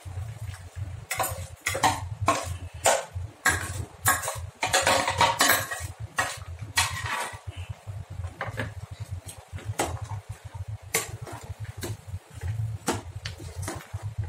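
Clinking and scraping of a steel mixer-grinder jar and a spoon against a metal cooking pot as ground masala paste is emptied into the chicken. The knocks come thick and fast for the first several seconds, then thin out into occasional taps and spoon stirring near the end. A steady low hum sits underneath.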